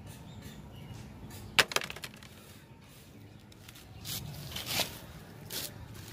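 Dry palm sheaths and coconut fibre crackling and rustling as they are handled, with one sharp click about a second and a half in and a few short crackles about four to five seconds in.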